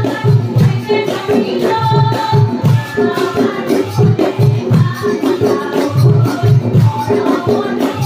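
Women's chorus singing Assamese dihanam, a devotional group chant, to a hand-played barrel drum and a jingling percussion beat.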